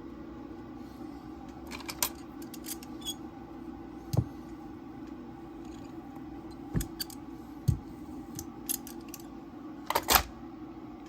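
Sharp clicks and light taps of small hard objects being handled, one every second or two, with a louder double click near the end, over a steady low hum.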